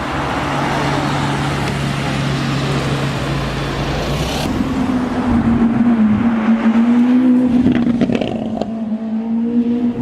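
Street traffic with a car engine running low. About halfway in, a louder sports car engine note takes over, holding fairly steady with small rises and dips, and several short sharp cracks come near the end.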